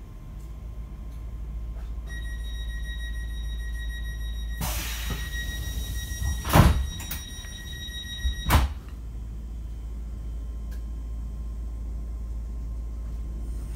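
Class 465 electric train's passenger doors closing at a station stop: a steady high warning tone sounds for several seconds, a hiss starts, then the doors shut with a loud thud and a second thud as the tone cuts off. A low steady rumble from the stationary train runs underneath.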